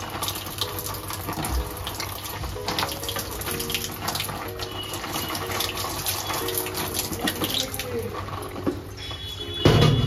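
Water running from a wall tap and splashing, with one heavy thump near the end.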